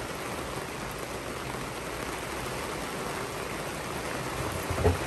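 Steady hiss of heavy rain falling on the sailboat and the sea around it, with a knock near the end.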